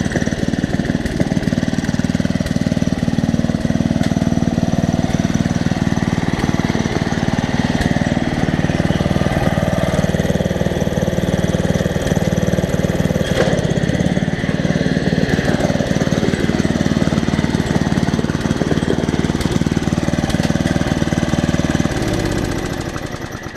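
Riding lawn mower engine running steadily at close range, then shut off near the end, winding down and stopping.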